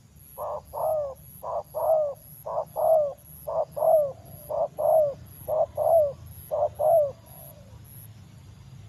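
Spotted dove cooing: about seven pairs of notes in a steady rhythm, each note falling slightly at its end, stopping about seven seconds in.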